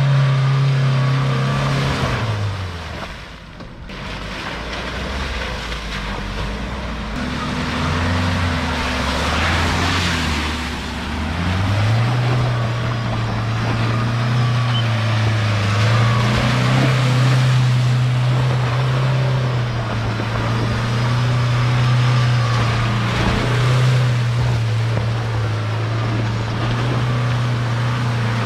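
New-generation Mahindra Thar's engine running at high revs while it spins donuts in wet mud, its tyres churning. The engine eases off about 2 s in, runs lower for several seconds, then revs up again about 12 s in and holds with small rises and falls.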